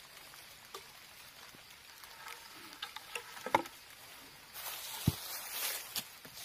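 Rustling of dry bamboo leaves and small clicks as a green bamboo tube and a machete are handled on the ground. There is a sharper knock about three and a half seconds in, and a heavier thud about five seconds in.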